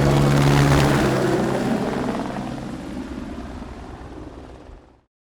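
Helicopter running, its steady engine tone and rotor pulsing fading away over a few seconds and cutting off just before the end.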